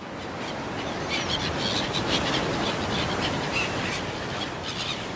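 Gulls calling over the steady wash of sea waves on a rocky shore.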